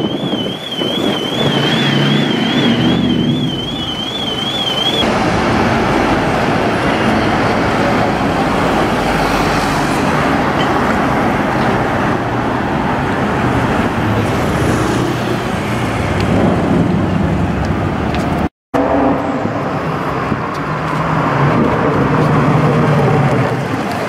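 Busy city street traffic: running engines and tyre noise of passing cars, taxis and buses. For the first few seconds a high, fast-warbling electronic alarm tone sounds over the traffic, then stops; the sound cuts out for a moment about three-quarters of the way through.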